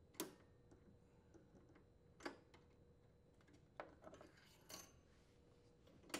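Faint, scattered metallic clicks and clinks of snap ring pliers working a large steel snap ring off a lawn mower's wheel support shaft, about five separate clicks spread over several seconds.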